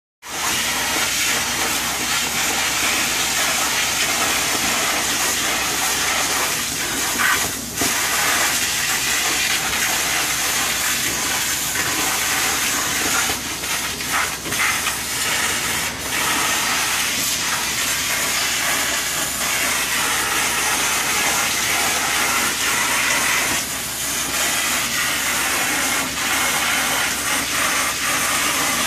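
Tile-and-grout cleaning wand spraying pressurised water onto the tile and sucking it back up through the vacuum hose: a steady, loud hiss that dips briefly a few times.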